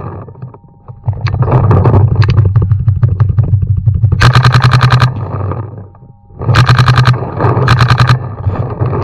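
Paintball markers firing in rapid strings of about a dozen shots a second, several bursts with short pauses between, the loudest three in the second half. A steady low hum runs underneath.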